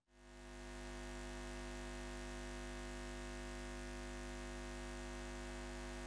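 A steady electronic drone made of many held pitches, fading in over the first second and then sustained without change.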